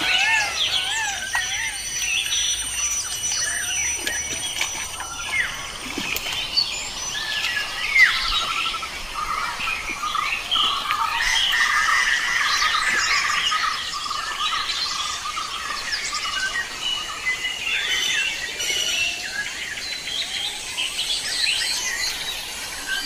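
Many birds chirping and calling over one another in open country, with a single short knock about eight seconds in.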